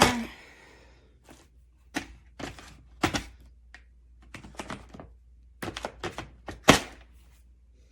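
Small hand tools and drill bits clicking and knocking against a tool-kit storage case as they are taken out and handled: a sharp knock at the start, scattered clicks, a quick cluster of taps near the end and one louder knock.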